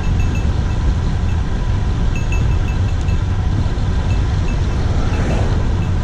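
Wind rumbling over a handlebar-mounted camera's microphone as a road bicycle rides downhill at speed. A faint high chirping repeats in short clusters, and a brief rushing swell comes about five seconds in.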